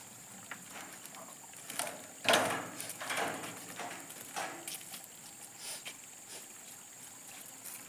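Footsteps and rustling as two people walk across dirt and scattered debris, with a few soft scuffs, the loudest about two seconds in. A steady high-pitched whine runs underneath.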